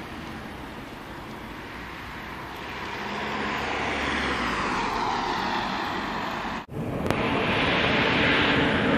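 Road traffic on a street, with a vehicle going by whose noise swells and sweeps in pitch over a few seconds. Then the sound cuts off suddenly and louder steady station noise of trains takes over, with a faint high steady whine.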